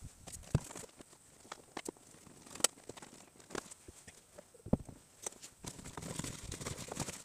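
Irregular sharp plastic clicks and knocks as wiring connectors are unplugged from a car door, then a rustling crackle near the end as the door's plastic membrane is handled.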